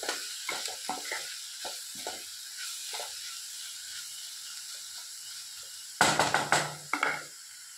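Chopped vegetables and spice powders sizzling in a frying pan while a wooden spatula stirs them, scraping the pan in short strokes over the first few seconds. A brief louder clatter comes about six seconds in.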